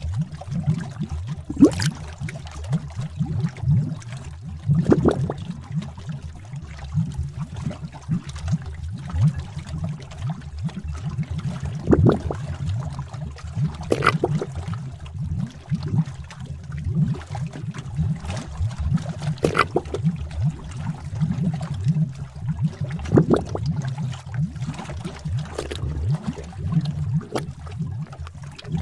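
Bubbling cauldron sound effect: liquid gurgling with a continuous low bubbling, and a louder pop of a bursting bubble every few seconds.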